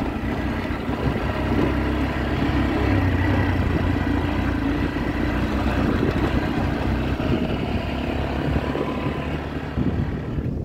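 Car engine and road noise of a car being driven, a steady low rumble.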